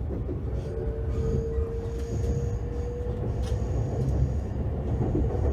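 Cabin noise inside a limited express train as it slows: a steady low rumble from the running gear. A thin steady whine holds for about three seconds in the first half, with a few faint clicks.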